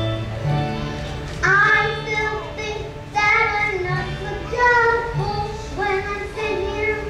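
A child singing a musical-theatre song in phrases of a few seconds each, with instrumental accompaniment that holds low, sustained notes underneath.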